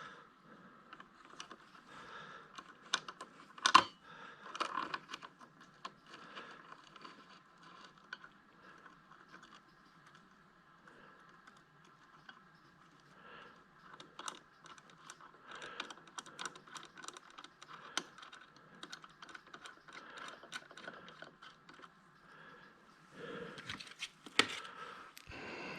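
Scattered light metal clicks and taps, with one sharper knock about four seconds in, as a sprocket hub is positioned and clamped on a milling setup.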